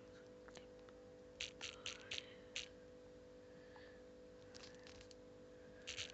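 Faint steady electrical hum, with a few short soft hissing sounds about a second and a half in and a fainter group near the end.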